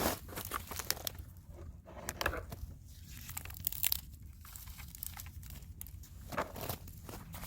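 Dry twigs and leaves crunching and crackling in irregular bursts, with a few sharper snaps.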